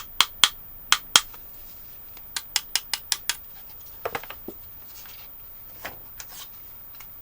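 A run of sharp clicks, about a dozen in quick succession over the first three and a half seconds, then a few scattered ones later.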